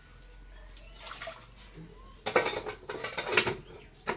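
Water poured and splashing into a steel wok of vegetables for a second or so, then a short metallic clink as a steel lid is set on near the end.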